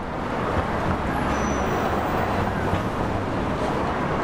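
Steady outdoor city street noise with a low hum underneath.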